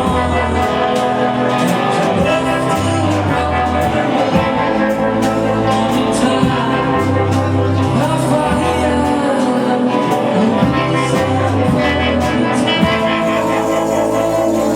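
A song with singing over a moving bass line and drums.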